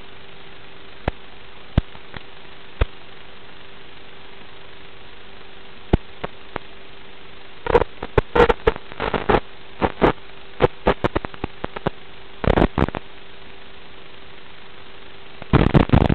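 Static hiss from an analog FPV video link's recorded audio, with a steady hum under it and scattered crackles. The crackles come in dense clusters about eight to ten seconds in and again near the end, where the signal breaks up with interference.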